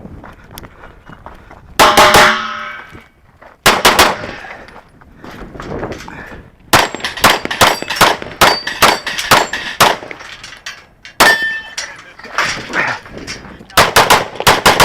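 Strings of rapid pistol shots from an open-class competition pistol, each followed by the ringing clang of steel plates being hit. One strike about two seconds in rings on for nearly a second.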